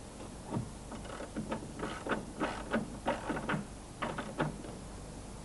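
Socket wrench turning a hex adjusting screw on a rear side-window mechanism: a run of irregular short metallic clicks over about four seconds, with a low steady hum underneath.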